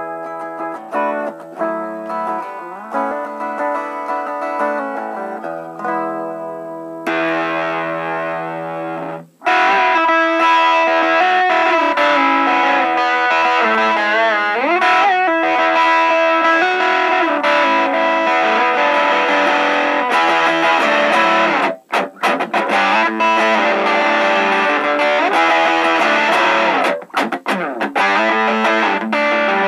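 Electric guitar played through a Sola Sound Tone Bender Professional MK II fuzz pedal, picking riffs and chords with a distorted fuzz tone. About nine and a half seconds in, the playing jumps to a much louder, thicker and brighter fuzz, with a couple of brief stops near the end.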